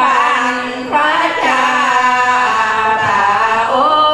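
Women's voices chanting sorapan, Thai Buddhist devotional verse sung to an Isan melody, unaccompanied, with long held notes that waver in pitch; a new phrase begins about a second in.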